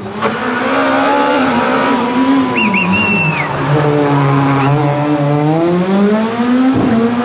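Škoda Fabia S2000 rally car's engine running hard, its pitch dropping as the car brakes into a tight corner, staying low through the turn and then rising again as it accelerates away. A brief high whistle sounds a few seconds in, and a sharp crack near the end.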